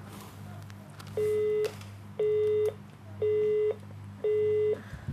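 Telephone busy tone on the disconnected line: a steady beep about half a second long, repeating about once a second. The caller's line has dropped.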